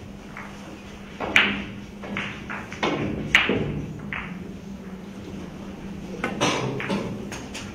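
Sharp clicks of billiard balls and cue striking, a few single clicks and then a quick cluster near the end as a shot is played, over a low steady hum.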